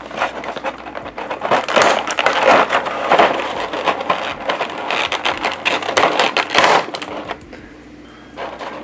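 Clear plastic blister tray being handled and flexed, crinkling and crackling with many small clicks. It quiets about seven seconds in, with one more click near the end.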